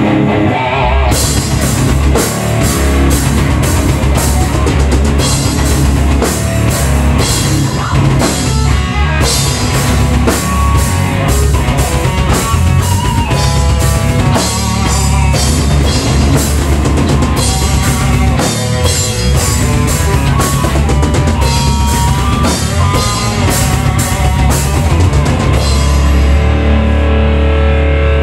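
Live rock band rehearsal: a drum kit with cymbals and an electric guitar playing heavy rock at full volume. The drums come in about a second in and stop shortly before the end, leaving the guitar ringing on alone.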